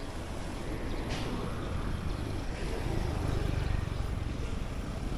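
Wind buffeting an action camera's microphone on a moving road bike, heard as a steady low rumble with road noise mixed in.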